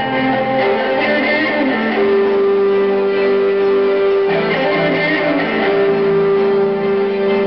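Live instrumental rock music with an amplified electric guitar over electronic backing, a long note held from about two seconds in.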